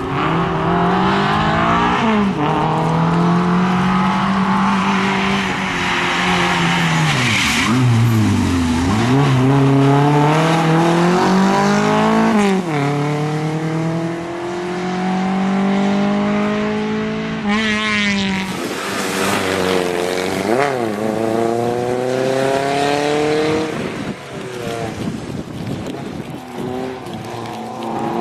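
Renault Clio Williams rally car's four-cylinder engine revved hard, its pitch climbing and dropping sharply again and again through gear changes and lifts. Tyres squeal in the turns. The engine fades off into the distance near the end.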